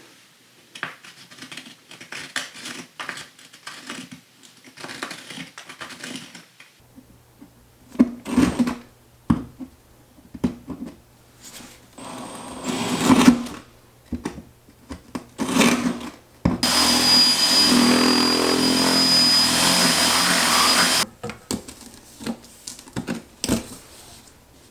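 Knocks and handling noises, then a handheld power tool running steadily with a high whine for about four and a half seconds, widening a plumbing hole in the floor.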